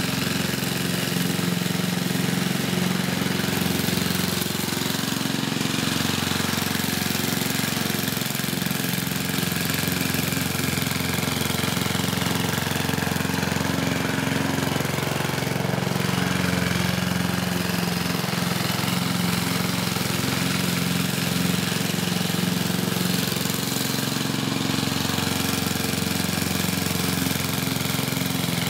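1960s Goodall push mower's 3-horsepower Briggs & Stratton four-stroke engine running at a steady speed while cutting grass, swelling and easing slightly as the mower is pushed back and forth.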